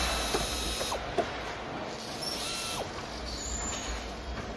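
Handheld cordless power screwdriver running in two short bursts: one lasting about a second at the start, a briefer one about halfway through. A sharp click just after the first, with mechanical clatter from the car-body assembly line throughout.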